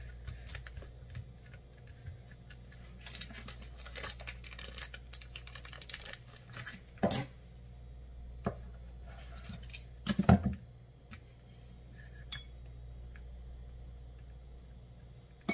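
Knife and hand handling on a plastic cutting board: scattered clicks and light rustling, with two louder knocks partway through as a chef's knife strikes and is set down on the board while pepperoni is cut. A low steady hum runs underneath.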